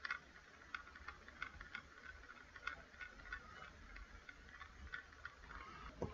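Faint, irregular light clicks, about three a second, over a low steady hum, with a slightly louder knock near the end.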